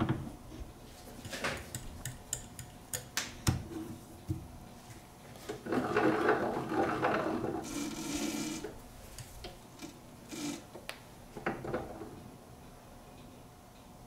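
Scattered clicks and knocks of hand work at a stopped metal lathe, with a longer rattling, scraping stretch in the middle while the three-jaw chuck is turned by hand.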